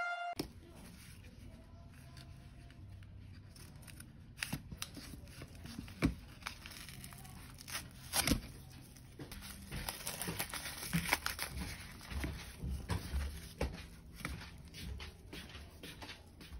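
Small packaging being opened by hand: irregular crinkling, tearing and sharp clicks, starting about four seconds in.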